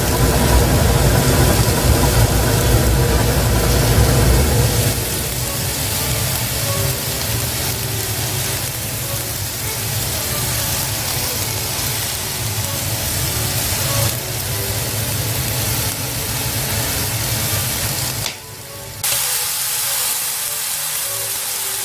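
A steady hiss with a low rumble under it for the first few seconds; the sound briefly drops out near the end.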